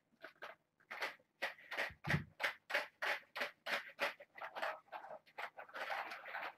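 Orange plastic ball-track cat toy shaken by hand, its balls rattling in an even run of about five clicks a second that stops shortly before the end, followed by a brief rustle.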